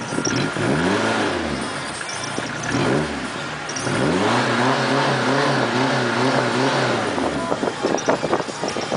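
Car engine being revved through its exhaust: two rises and falls in pitch, then held at raised revs with a quick wavering for about three seconds. A patter of sharp clicks follows near the end.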